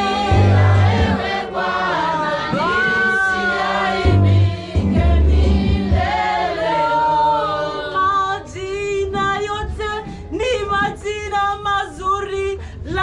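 Church praise-and-worship choir singing a Swahili gospel song, many voices together, with deep low notes sounding under the singing in the first half. From about seven seconds in the texture thins, and wavering, vibrato-laden voices carry the line.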